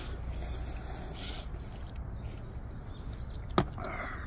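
People slurping ramen noodles from bowls, in short noisy bursts over a steady low rumble, with one sharp click about three and a half seconds in.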